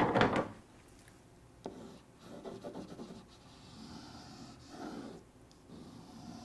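Pen scribbling and rubbing back and forth on a drawing board while colouring in a shape, with a few light taps of the pen. A short breath is heard at the very start.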